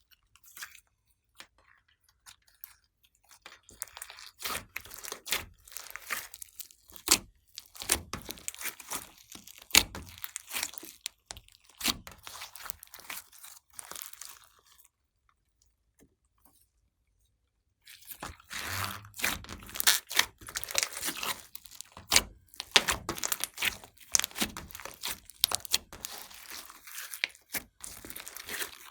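Hands working glossy slime: quick runs of sticky crackles and pops as it is squeezed and stretched, stopping for a few seconds near the middle.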